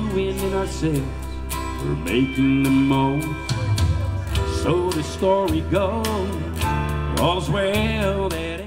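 A man singing into a microphone over amplified backing music with a steady beat; the song fades out near the end.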